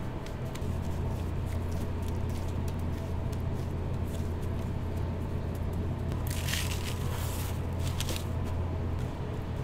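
Gloved hands pressing ground-shrimp patties into a tray of breadcrumbs: a soft, crumbly rustle and squish, with a louder crunchy scrunch about six to seven seconds in and again near eight seconds. A steady low hum runs underneath.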